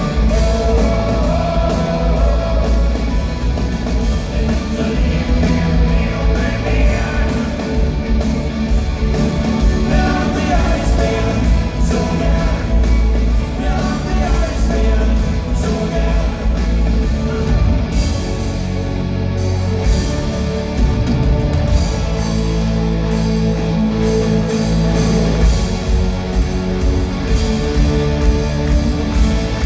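Live rock band playing loud through a PA system, with electric guitars, bass and drums and a voice singing over them, heard from within the concert crowd.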